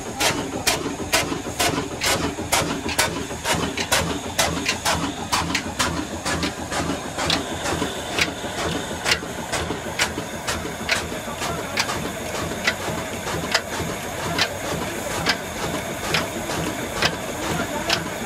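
Old horizontal single-cylinder diesel oil engine with a heavy flywheel running just after start-up, driving a flat belt: a steady run of sharp, evenly spaced firing knocks, about three a second at first and settling to a little over two a second.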